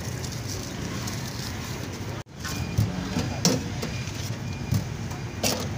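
Busy street-stall background din of chatter and traffic, briefly cut off about two seconds in, then a few sharp clinks as food is assembled on a steel counter.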